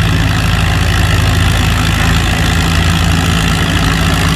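Antique farm tractor's engine running hard and steady under heavy load as it pulls the weight-transfer sled down the track.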